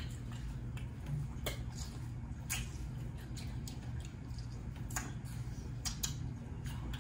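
Close-miked eating of fresh fruit: irregular crisp mouth clicks and smacks, about a dozen, over a steady low hum.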